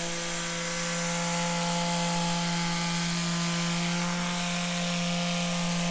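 Handheld electric massage device running with a steady buzzing hum whose pitch holds even throughout.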